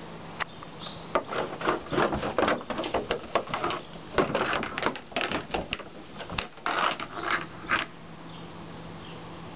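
A broom's bristle head and handle scraping and knocking on wooden deck boards as a Great Dane puppy bites and drags it. It comes as a rapid, uneven run of scrapes and clicks from about a second in to about eight seconds.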